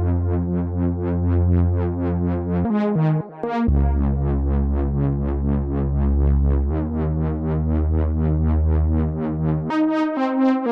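Moog Voyager XL analog synthesizer playing a fast repeating arpeggio of short bright notes, about five a second, over sustained bass notes that change pitch every few seconds.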